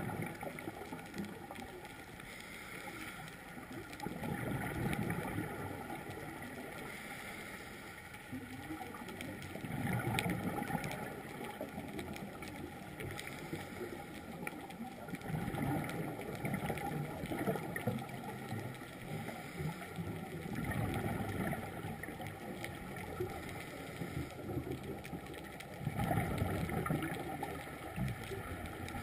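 Scuba diver breathing underwater through a regulator: exhaled bubbles gurgle in swells about every five to six seconds, over a steady faint hum.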